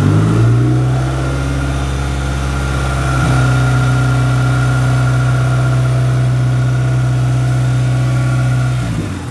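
Dodge Neon SRT-4's turbocharged 2.4-litre four-cylinder idling steadily, freshly rebuilt and reinstalled and on its first break-in run.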